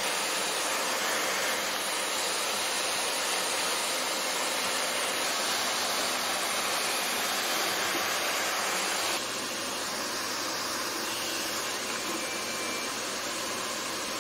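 Vacuum motor of a linear book scanner running steadily, sucking air through the slotted page-turning wedge. About nine seconds in, the noise drops slightly and a low hum comes up under it.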